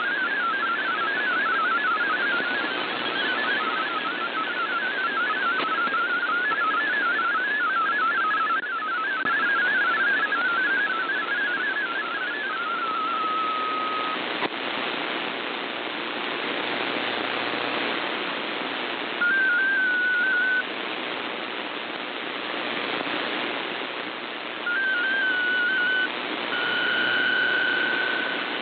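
Shortwave AM receiver audio of a VOA Radiogram digital-mode broadcast over steady static hiss. Warbling MFSK32 data tones end about 12 seconds in with a short held tone, then there are a few seconds of hiss alone. Two brief stepped RSID mode-identifier bursts follow about five seconds apart, and a steady PSK125R signal tone starts near the end.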